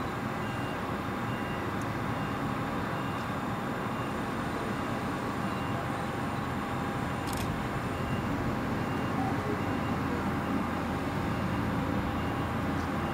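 Reims-Cessna F150K's four-cylinder Continental engine running at idle as the plane rolls out after landing, a steady low engine noise growing slightly louder as it nears. A faint high beep repeats evenly in the background.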